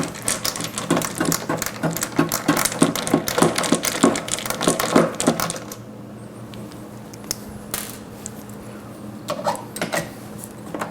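Screwdriver working the small screws of a sterilizer's water pump mount, a quick run of metallic clicks and rattles for about five seconds, then only a few scattered clicks. A faint steady low hum runs underneath.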